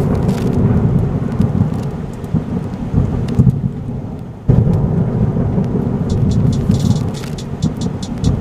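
Thunderstorm: a continuous low, rough rumble of thunder with a fainter hiss of rain. It breaks off and starts again abruptly about four and a half seconds in.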